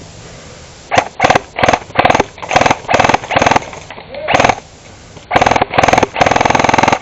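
Airsoft gun firing repeated short full-auto bursts, each a fast, even rattle of shots, about a dozen bursts starting a second in, with a longer burst near the end.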